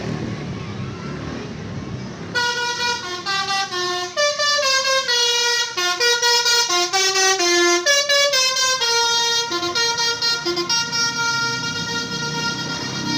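A Basuri telolet bus horn playing a fast tune of short, stepping notes, starting about two seconds in over a steady rumble and running on to the end, the notes getting choppier near the end.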